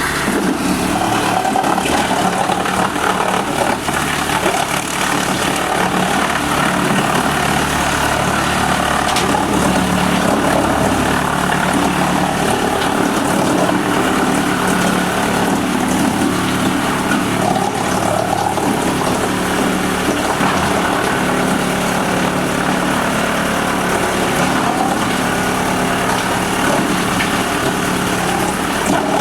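Wood chipper's engine running steadily at a constant speed.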